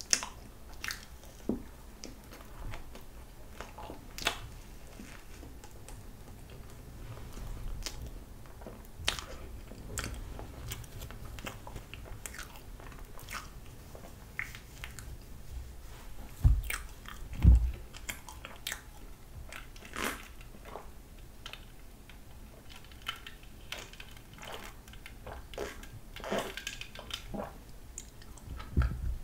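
Close-miked eating of soft, sugar-dusted pandoro bread topped with whipped cream: bites and chewing with small wet clicks and mouth smacks. Two low knocks come about two-thirds of the way through, and another near the end.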